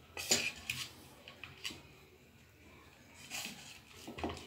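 Metal spoon scraping and clinking against a stainless steel bowl as it stirs a crumbly rice-flour dough, in short uneven strokes with a quieter stretch in the middle.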